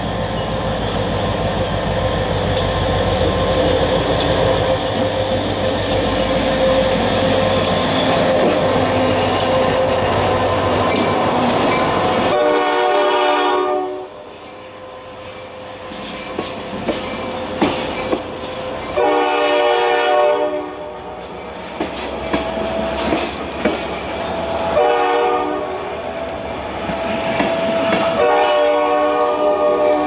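Diesel freight locomotive running loud as it climbs past, then covered hopper cars rolling by with wheels clicking over the rail joints. The locomotive's air horn sounds four blasts, each about one and a half to two seconds long, the first about twelve seconds in.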